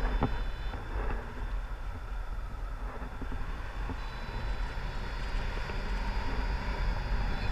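Wind buffeting a pole-mounted action camera's microphone in a tandem paraglider's flight: a steady low rushing rumble.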